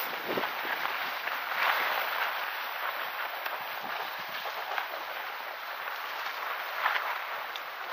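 Skis sliding and scraping over groomed snow: a steady hiss with a couple of brief louder scrapes, about two seconds in and near the end.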